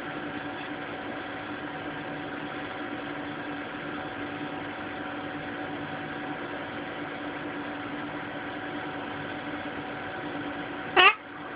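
A steady machine-like hum with a few faint fixed tones, as from a household appliance or fan running. Near the end a short, loud voiced cry breaks in.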